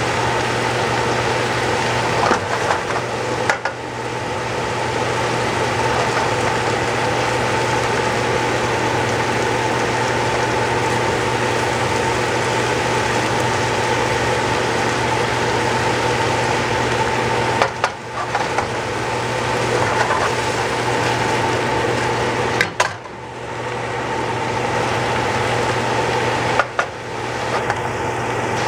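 Baby bok choy cooking in a hot sauté pan with wine and soy sauce: a steady sizzle and simmer with a constant hum underneath. A few brief knocks break in now and then.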